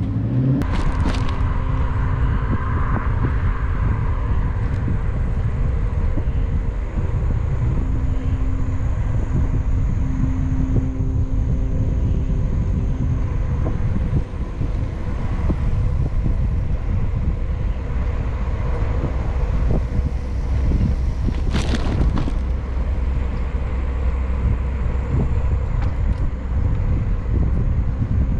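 Road traffic running alongside a moving bicycle, with steady wind rumble on the rider's camera microphone and engine hum from nearby vehicles. Two sharp knocks come about a second in and again near twenty-two seconds.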